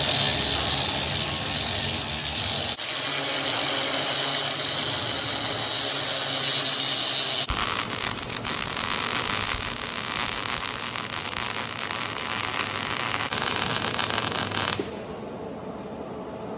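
Angle grinder grinding out a crack in thick steel plate with a steady high whine, then, after an abrupt change about seven and a half seconds in, an electric arc welder crackling steadily as the crack is welded up, dropping quieter near the end.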